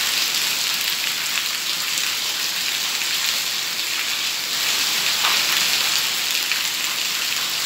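Heavy monsoon rain falling on a paved courtyard: a steady, dense hiss of rain with many small drop splashes and taps.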